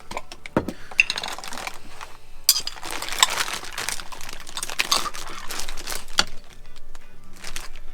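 Clinking and scraping of a knife against a glass jar and dishes, in a string of sharp clicks with a busier scraping stretch in the middle, over background music.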